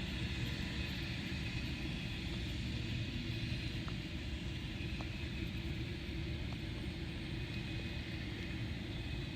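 A few faint ticks of a wrench working an aircraft spark plug's ignition lead nut down, over a steady low background rumble.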